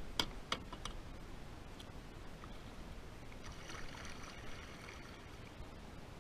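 Kayak being paddled: a few quick knocks in the first second, then water splashing and dripping off the paddle blade a few seconds in.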